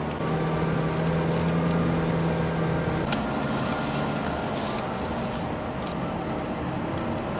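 Steady engine hum and road noise heard from inside a moving minivan's cabin.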